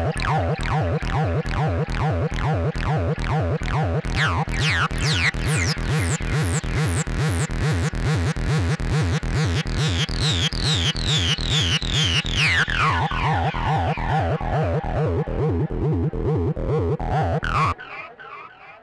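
Electronic dance track: a steady, driving kick drum beat under falling synthesizer sweeps. It cuts off abruptly near the end, leaving a faint fading tail.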